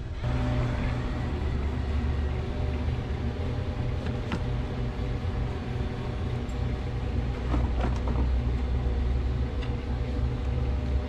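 Golden retriever sniffing at close range to a GoPro on his harness, over a steady low rumble of the camera rig moving with the dog.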